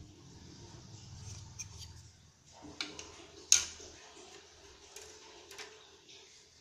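Hard plastic parts of a mini 4WD kit clicking and tapping as they are handled on a table, with one sharp click about three and a half seconds in and a few lighter ones around it.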